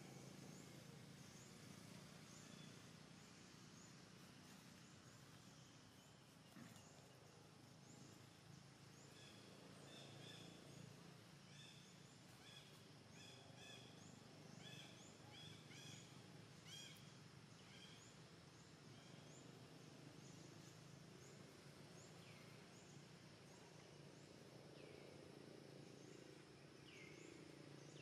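Near silence: faint outdoor ambience with small birds chirping, a run of quick high chirps about a third of the way in and a few short falling calls near the end.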